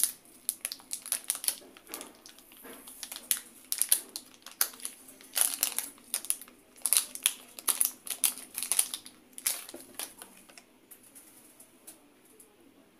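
Plastic packaging crinkling and crackling irregularly as a small plastic bag is handled and opened by hand, dying away near the end.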